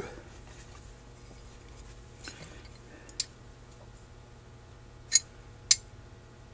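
Light handling noise and a few sharp metallic clicks from a Holley 2280 carburetor body being turned over in the hands, with a small check ball loose in its passages after being dropped into the wrong hole. There is a soft click about three seconds in, then two louder ticks half a second apart near the end.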